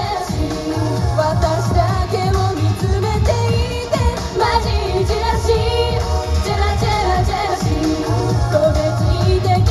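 J-pop idol song performed live: several women singing into microphones over a backing track with a strong, steady bass beat, played through PA speakers.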